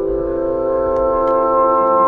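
Background music: a sustained, organ-like chord of held tones.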